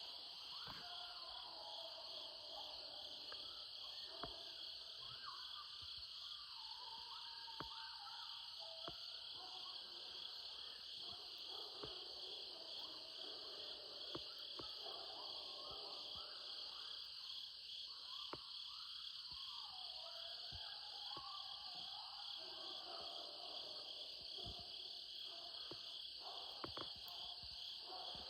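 A pack of coyotes howling and yipping in wavering calls that glide up and down, in two long choruses with a short lull between them, over a steady high insect chorus. A few short sharp sounds cut through.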